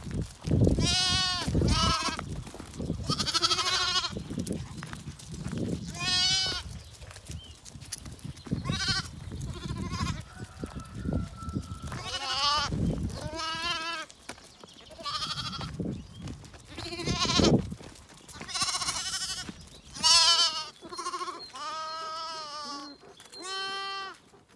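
A group of bottle-fed Zwartbles lambs bleating over and over, a dozen or more short wavering calls, some overlapping near the end.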